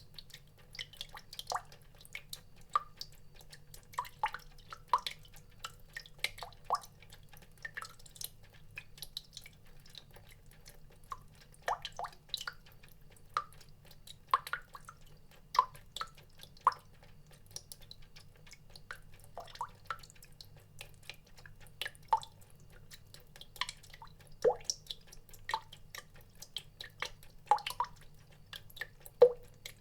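Water drops falling one by one into water, each a short pitched plink, at an uneven pace of about one or two a second, over a faint low steady hum.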